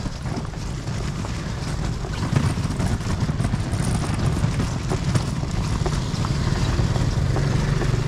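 A hand cart's wheels rolling and rattling over rough pavement, with a motor scooter's engine approaching.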